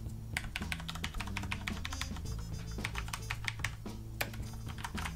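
Typing on a Corsair Vengeance K70 mechanical keyboard with Cherry MX Brown switches: a quick, uneven run of key strokes.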